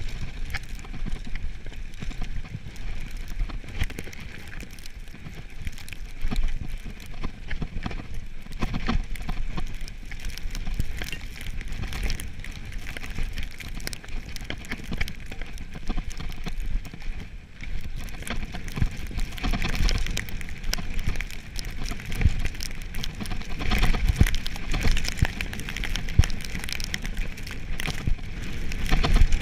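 Mountain bike riding fast down a snowy, rocky trail: tyres crunching over snow and stones, with a constant rattle and frequent knocks through the bike. Under it runs a low rumble of wind buffeting the onboard camera's microphone.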